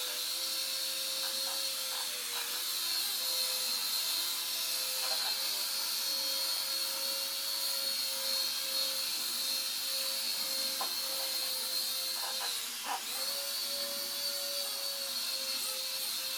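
Small electric motors and rotors of an Air Hogs Helix 360 toy RC flyer whirring steadily in flight. The pitch drops and the whir cuts out for a moment about three-quarters through, then comes straight back up.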